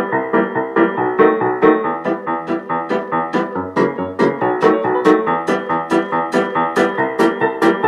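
Background music: a keyboard tune with quick, evenly timed notes over a light steady beat.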